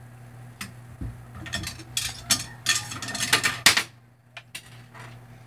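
Crossbow gear being handled: a run of clicks and metallic rattles, thickest between about two and four seconds in.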